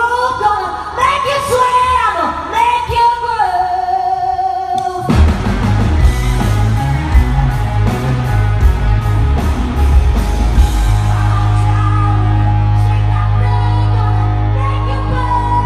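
Rock band rehearsing live: a female voice sings an unaccompanied line, then about five seconds in the band comes in abruptly with drums, bass and electric guitar playing a heavy riff, ending on a long held low chord.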